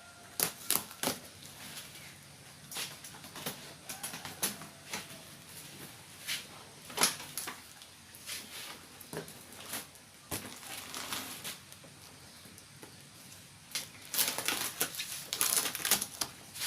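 Sealed package being opened by hand: scattered crinkles, rustles and light knocks of packaging, with a dense stretch of crackling near the end.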